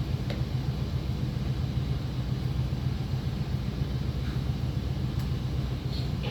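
Steady low hum and rumble of operating-theatre background noise, with a few faint ticks.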